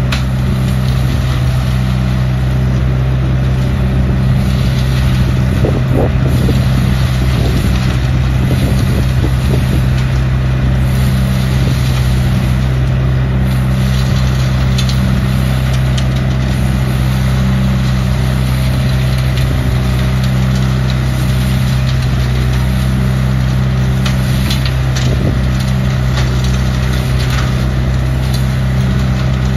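ODB LCT600 trailer-mounted leaf vacuum running steadily under load, its engine and fan making a loud, even drone with a constant rushing hiss. Scattered ticks come from very dry leaves being sucked up the hose and blown through the impeller into the truck.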